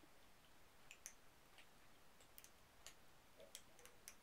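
Kittens moving about in a wire crate: faint, irregular clicks and ticks over near silence.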